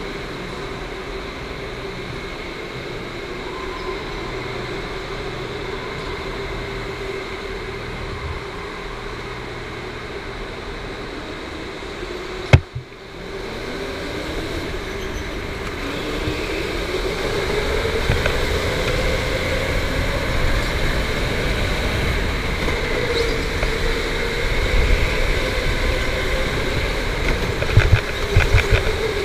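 Electric go-kart motor whining as it drives, its pitch falling and rising with speed and climbing steadily as the kart accelerates after a sharp knock about halfway through. A low rumble under it grows louder in the second half, with a few smaller knocks near the end.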